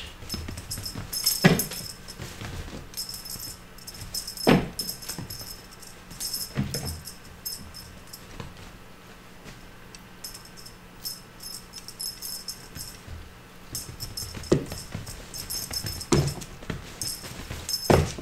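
Small bells jingling in repeated bursts as a cat wand toy is shaken and waved, with about half a dozen sharp thumps of kittens pouncing and landing.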